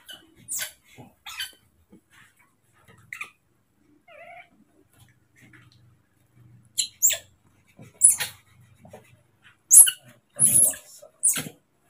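Baby monkeys giving short, high-pitched squeals, a couple at first and then more often in the second half.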